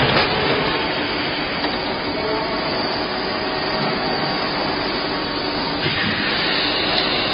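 Plastic bottle blow-moulding machine running: a steady mechanical noise with a few faint ticks, getting brighter and hissier about six seconds in.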